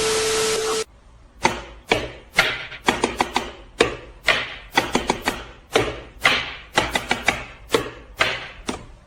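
Knife chopping on a cutting board: sharp knocks about two a second, often in quick pairs. Before the chopping, a short hiss with a steady tone lasts about the first second.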